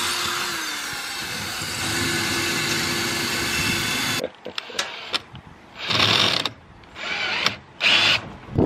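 Cordless drill running steadily under load for about four seconds, driving into the block wall of a raised planter to fix stainless steel corner beading; its whine dips in pitch about half a second in. After it stops, several short separate bursts of noise follow.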